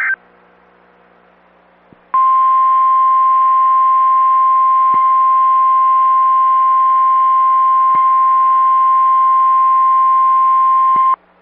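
NOAA Weather Radio 1050 Hz warning alarm tone: a single steady pitch starting about two seconds in and held for about nine seconds before cutting off, the signal that a warning message follows. Before it comes faint radio hum and hiss, just after the end of a data header burst.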